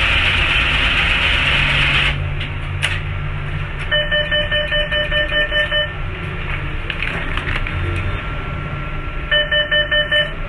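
Two runs of fast, steady electronic beeps from a bank ATM: about eleven beeps in two seconds near the middle, then five more near the end, as the machine prompts for the card and cash to be taken. Before them a loud steady hiss cuts off about two seconds in.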